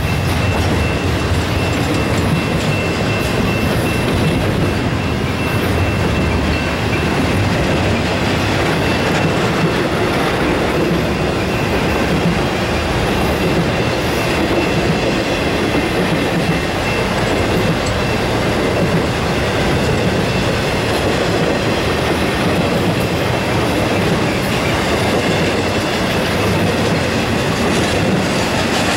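Double-stack intermodal freight cars rolling past: the steady noise of steel wheels running on rail. A thin, high ringing tone is heard over it in the first several seconds and then fades.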